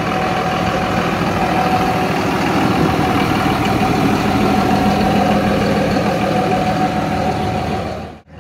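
International service truck's engine running steadily at idle. The sound breaks off abruptly near the end.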